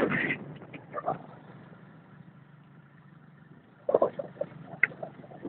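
Bullock cart running fast on an asphalt road: a low steady rumble under scattered knocks and clacks from the cart and the bulls' hooves, with a cluster of them about four seconds in.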